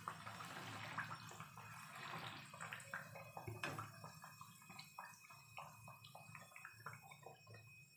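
Malpua batter deep-frying in hot oil in a karahi: a sizzle thick with crackles and pops, which thins to scattered crackles over the second half.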